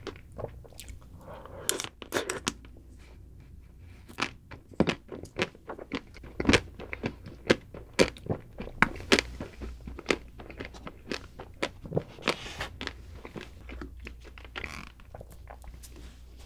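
Close-up biting and chewing of a chocolate-coated ice cream bar, the chocolate shell cracking in many sharp crunches that thin out near the end.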